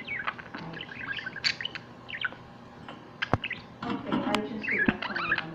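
Pet budgerigars chattering and chirping in quick, warbling bursts, with two sharp clicks, one about halfway through and one near the end.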